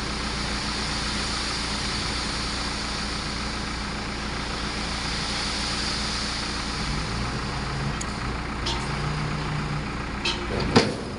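Heavy diesel engines of a tipper truck and backhoe loader running steadily, with a few sharp knocks near the end, the loudest about ten and a half seconds in.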